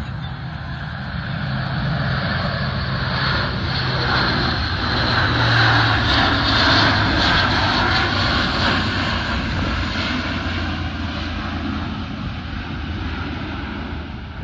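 Airbus A400M Atlas's four TP400-D6 turboprop engines and eight-bladed propellers running at display power as the aircraft passes, a steady low hum under a broad engine noise. It grows louder to a peak about halfway through, then fades.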